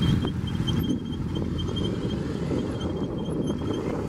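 Motorcycles running at walking pace through slow, tight turns, a steady low engine rumble mixed with wind on the microphone. A faint, repeated high chirping sits above it.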